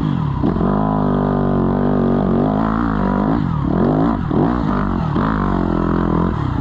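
Ford Mustang engine running hard, its engine speed rising and falling several times.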